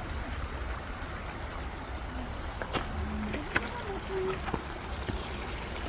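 Mountain stream running over rocks, a steady rushing wash of water, with faint voices and a couple of light clicks partway through.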